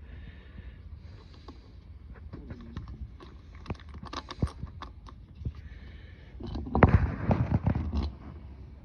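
Hand-handling clatter of metal parts and tools: scattered clicks and knocks, with a louder burst of rattling and knocking near the end.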